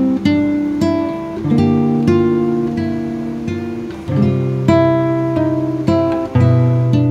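Background music: an acoustic guitar playing plucked notes and chords in an even rhythm.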